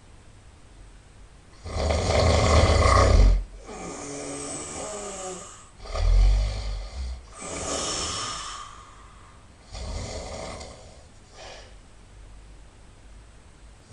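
A person snoring loudly, breath by breath. A loud, deep snore comes about two seconds in, followed by a wavering pitched sound on the out-breath. Another loud snore comes about six seconds in, then a hissing breath, and fainter breaths follow toward the end.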